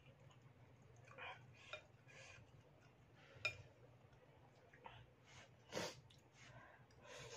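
Metal fork and spoon clinking and scraping against a plate of noodle soup as noodles are picked up, with soft eating sounds between; one sharp clink about three and a half seconds in, and another louder short sound a little before six seconds.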